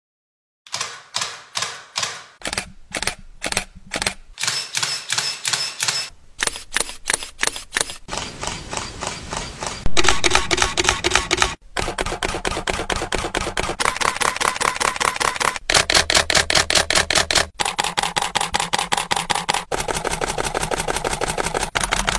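Rapid series of camera shutter clicks, a few a second at first and becoming a fast, dense burst about halfway through, over a faint pitched backing that changes every couple of seconds.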